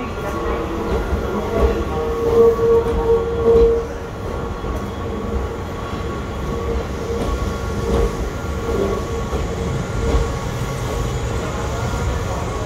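Tobu 10000 series electric train pulling slowly into a station platform: the rumble of wheels and bogies on the track, with a steady squealing tone that is loudest about two to four seconds in.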